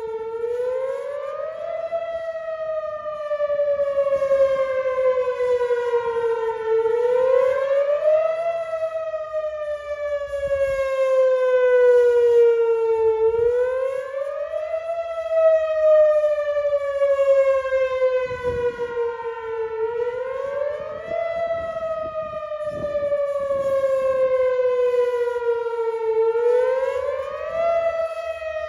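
Whelen WPS-4004 electronic outdoor warning siren sounding a repeating tone. Each cycle climbs quickly for about a second and a half, then slides slowly back down for about five seconds, so a new rise comes roughly every six and a half seconds.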